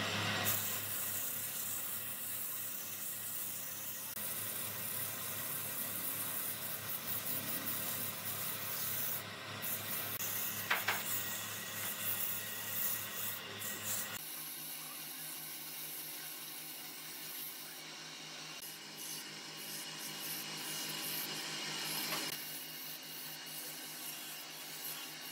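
Sandpaper pressed by hand against a wooden vase spinning on a wood lathe: a steady rubbing hiss over the hum of the lathe's motor. The low hum changes about fourteen seconds in.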